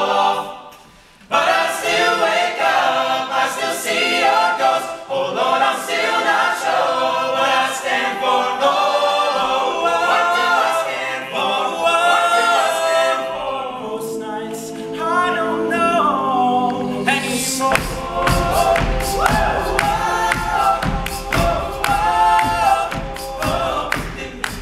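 All-male a cappella group singing in close harmony without words after a brief pause. About two-thirds of the way through, a steady beat with a deep bass comes in under the voices, typical of vocal percussion.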